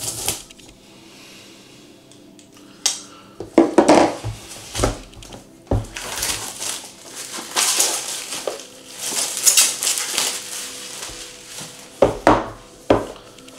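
A cardboard box being cut and handled on a tabletop: a knife slices the tape at the start, then an irregular run of knocks, scrapes and rustling as the box is turned over and its lid worked loose.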